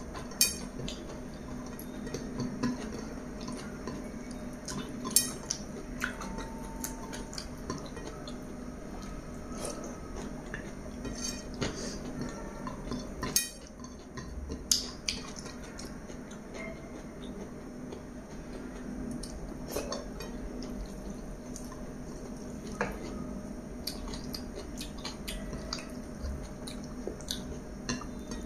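Fingers mixing biryani rice and gravy on a ceramic plate, with scattered sharp clicks against the plate, a few of them loud.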